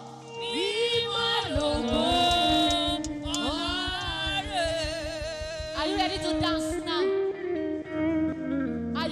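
Live gospel praise singing: a woman leads with a group of female backing singers, over a fast low beat through most of it.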